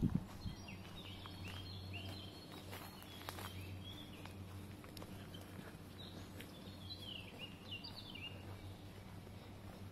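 Songbirds calling in woodland: short chirps and warbled phrases, one run in the first half and another a little past the middle, over a faint steady low hum.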